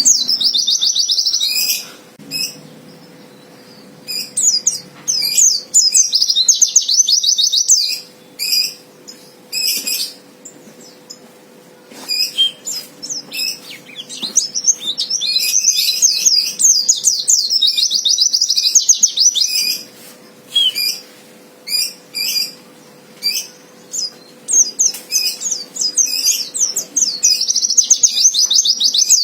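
Pleci (white-eye) singing fighter-type song, used as a lure to provoke rival males: long, fast, high-pitched twittering phrases lasting a few seconds each, four times, with short separate chirps in between.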